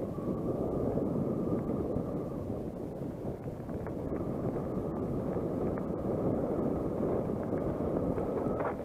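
Wind buffeting the camera microphone over a mountain bike's tyres rolling on a rocky dirt singletrack, with a few small knocks and rattles from the bike going over bumps.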